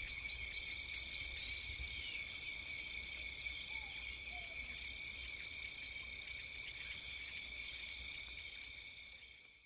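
Night chorus of crickets: a steady high trilling with a chirp that repeats about twice a second, over a faint low rumble, fading out near the end.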